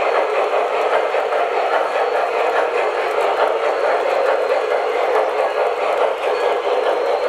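Model train running on its track: a steady rolling whir of the locomotive and cars, with faint ticking.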